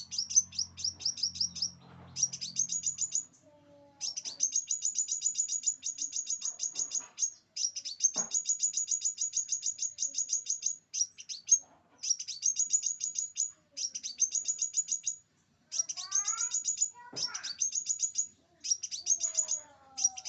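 Scarlet minivet (sepah raja) singing: fast runs of high, thin chirps, about eight a second, in phrases of one to three seconds broken by short pauses. Fainter, lower sweeping calls come in now and then.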